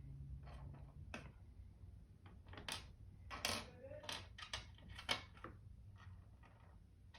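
Scattered light clicks and clinks of small robot parts and screws being handled and set down during a teardown, a few sharper ones in the middle, over a low steady hum.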